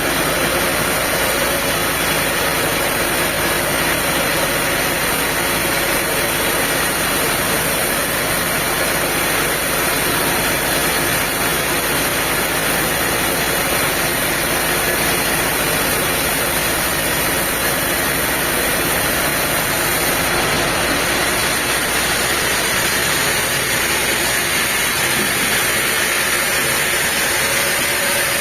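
Machinery engine running steadily at an even speed, with a dense, constant noise.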